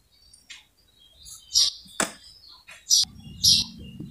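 Small birds chirping in short, high-pitched bursts, with a single sharp click about two seconds in and a low steady hum coming in about three seconds in.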